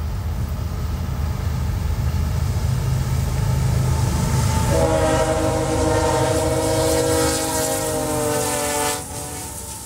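Diesel freight locomotive approaching with a low rumble that grows louder, then sounding its multi-chime air horn in one long blast of about four seconds starting about halfway in. The pitch sags slightly as the locomotives draw alongside. The horn cuts off sharply near the end, leaving the quieter rumble of the train passing.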